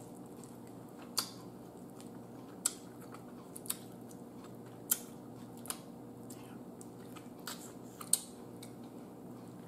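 A person eating baked turkey neck by hand: chewing and picking the meat off the bone. There are about seven short sharp clicks and smacks over a faint steady hum.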